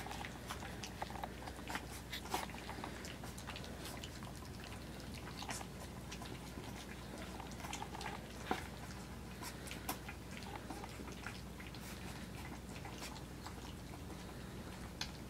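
Litter of three-week-old Australian Shepherd puppies lapping and chewing puppy mush from a shallow pan: faint, irregular small wet clicks and smacks.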